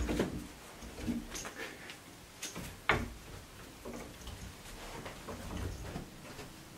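Scattered light knocks and ticks, with a sharper knock about three seconds in: a squirrel monkey jumping onto and scrambling over dry wooden branches.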